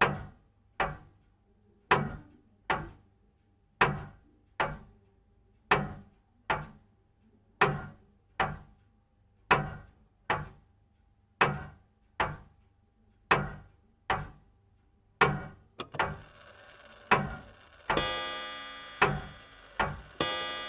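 Grandfather clock ticking in an uneven tick-tock about once a second. Near the end, ringing tones with long decays join the ticks, like the clock starting to chime.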